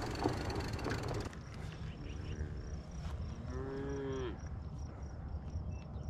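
Cattle mooing: a short low moo about two seconds in, then a longer moo that drops in pitch at its end, over a low wind rumble. For about the first second, louder wind and tyre rush from riding stops abruptly.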